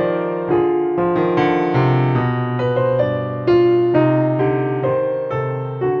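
Background music: a gentle piano melody, its notes struck about twice a second over sustained lower notes.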